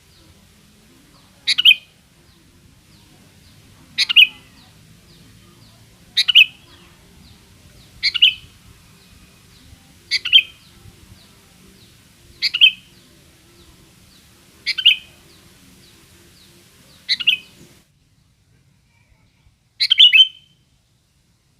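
Sooty-headed bulbul (kutilang) calling: a short, bright chirping call repeated about every two seconds, nine times.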